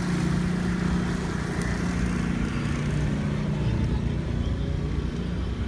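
Boat motor running with a steady low hum over a wash of water and wind noise; the hum drops in pitch about three seconds in.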